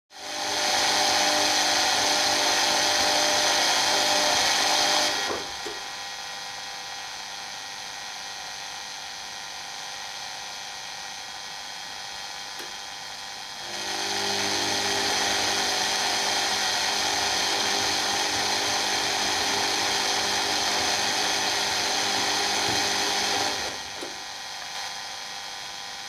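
Whining buzz with many steady tones from a running Zanussi washing machine, coming in spells as its drum motor works. It is loud for about five seconds, drops back for about eight, is loud again for about ten, then drops back near the end.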